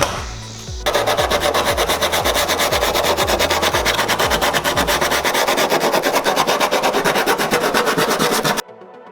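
Abrasive sanding of a carbon fiber hood's cut edge: a loud, rasping noise with a fast, even pulse that starts about a second in and cuts off abruptly near the end. Electronic music with a kick-drum beat plays underneath.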